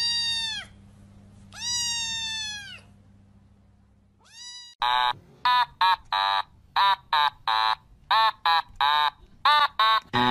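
Kitten meowing: two long meows that drop in pitch at the end, then a short one. About five seconds in, music of short, quick, evenly paced notes starts.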